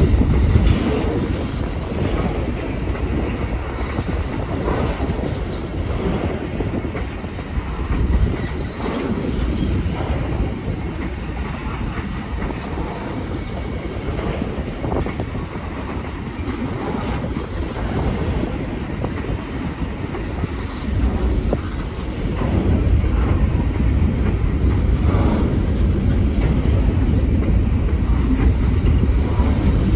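Railroad cars of a passing train rolling by, wheels rumbling and clacking over the rail joints, growing louder about two-thirds of the way through.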